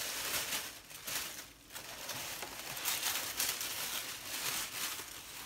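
Tissue wrapping paper rustling and crinkling unevenly as it is handled and pulled away from a pair of boots in their box.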